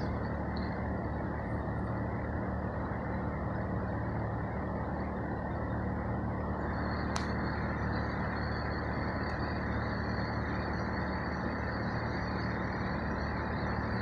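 A steady low machine hum with a constant drone underneath, unchanging throughout. There is one sharp click about seven seconds in, and after it a faint, steady high-pitched hiss.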